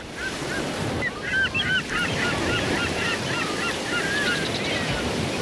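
A flock of geese honking, many short calls overlapping, over a steady rushing noise like wind or surf.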